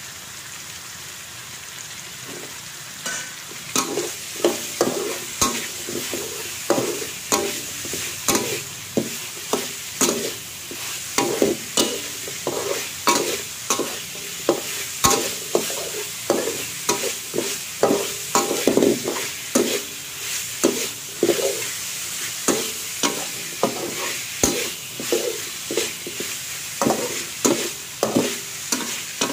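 Metal spatula scraping and tossing sliced vegetables and meat around a metal wok, at roughly two strokes a second, over a steady sizzle of frying. For the first three seconds only the sizzle is heard, then the stirring starts.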